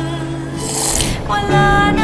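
Soft background music with sustained held tones. A brief hiss cuts through about half a second in, and a new chord comes in past the middle.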